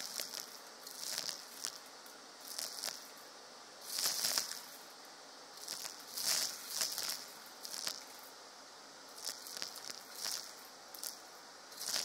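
Vacuum cleaner sucking roasted coffee beans into its stainless-steel wand: about a dozen irregular bursts of hissing rattle as beans are pulled up the metal tube, over a faint steady rush of air.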